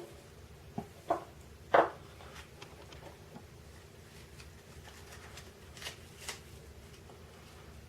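Light clicks and knocks of small parts of a VAZ classic's mechanical fuel pump being handled and taken apart on a bench: three sharp ones in the first two seconds, then two fainter ticks later on.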